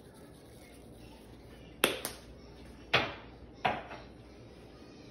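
Sesame seed shaker tapped and shaken over a plate of sliced fish, making four sharp clicking taps, the first two close together.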